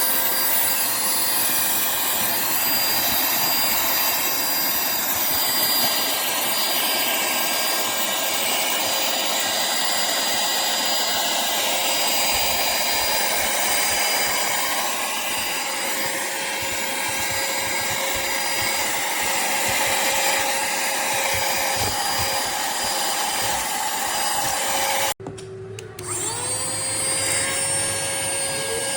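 Handheld cordless car vacuum cleaner running steadily, a rushing suction noise with a high motor whine. About 25 seconds in it cuts off briefly, then starts again with a rising whine as the motor spins back up.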